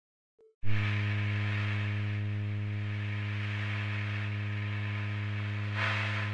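Steady electrical hum with hiss: a buzz built on a low tone of about 100 Hz and its overtones, starting abruptly out of silence just under a second in.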